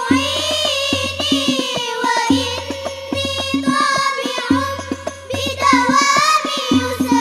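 Children singing an Al Banjari sholawat, a melismatic melody that bends and glides, accompanied by hand-struck frame drums (terbang) beating a steady, busy interlocking rhythm with deep bass strokes.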